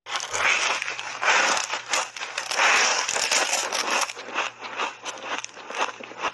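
Refrozen block ice coated in matcha powder being bitten and chewed close to a clip-on microphone: loud, dense crunching for the first four seconds, then sharper, scattered cracking as the chewing goes on.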